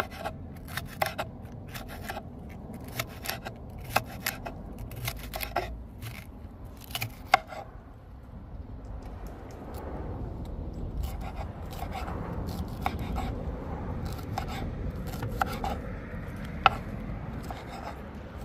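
Chef's knife slicing a green sweet pepper on a plastic cutting board: irregular sharp knocks of the blade striking the board, close together for the first seven seconds or so, then sparser. A low steady background noise grows louder about halfway through.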